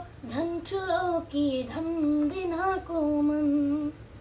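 A boy singing a Nepali song unaccompanied, his voice moving through a melodic line and holding one long note near the end.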